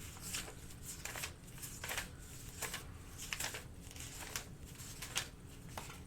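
Irregular light clicks and brief rustles from small objects being handled on a desk, such as cards, packs or packaging.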